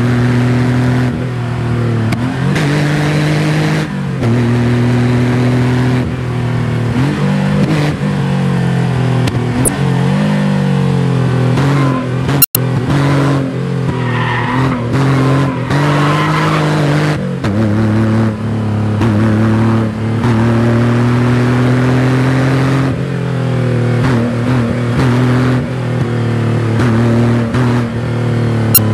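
Porsche 911 flat-six engine running hard at high revs, its pitch climbing and dropping again and again as it shifts through the gears, with some tyre squeal about halfway through and a momentary break in the sound just before that.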